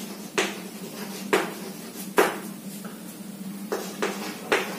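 Chalk writing on a chalkboard: about six sharp taps and short scrapes at irregular intervals as letters are written, over a steady low hum.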